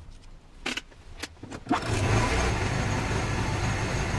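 A few sharp metal clicks as locking-plier clamps are set on steel tubing, then, about two seconds in, a steady mechanical hum and hiss from the TIG welding machine running, with no arc yet.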